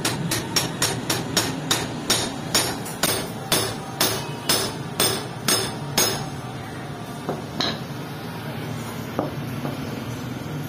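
Hammer blows on a steel disc fitted in a motorcycle wheel's drum brake hub, knocking it loose. The blows come quickly at first, about four a second, then slow to about two a second and stop about six seconds in.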